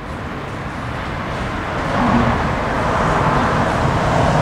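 Road traffic noise, with a vehicle getting louder about halfway through.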